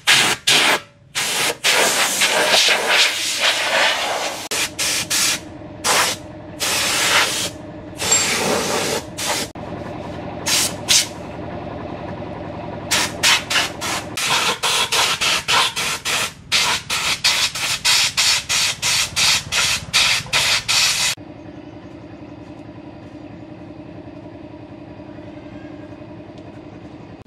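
Compressed-air blow gun hissing in many short blasts, on and off, for about twenty seconds, then stopping abruptly. A steady motor hum runs beneath and carries on alone near the end.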